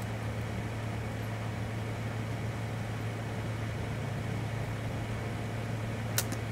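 A steady low mechanical hum with hiss runs underneath. About six seconds in, a compound bow held at full draw is shot off a trigger release, heard as two quick sharp clicks close together.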